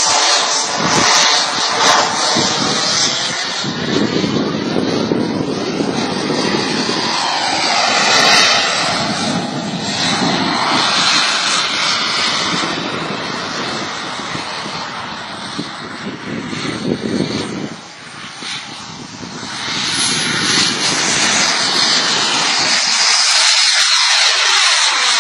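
Jet aircraft flying past overhead: loud, steady jet engine noise with a shifting, phasing hiss as it moves. It fades briefly about two-thirds of the way in, then swells again as it comes back past.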